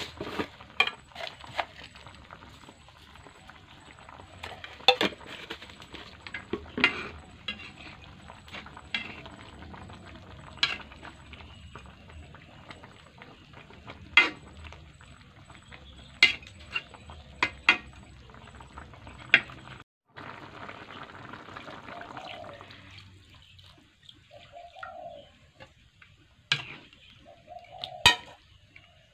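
Steel ladle stirring a simmering broth in an aluminium pan, scraping the pan and knocking against its rim in sharp clinks every second or two. The sound breaks off briefly about twenty seconds in.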